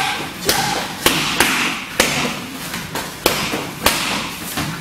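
Roundhouse kicks landing on a freestanding BOB (Body Opponent Bag) training dummy: a quick string of sharp slapping thuds, about two a second, with a short pause near the middle.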